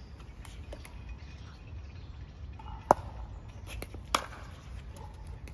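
Pickleball paddle striking a plastic pickleball: two sharp pocks with a short ring, the louder one about three seconds in and the second just over a second later, with a few fainter clicks between.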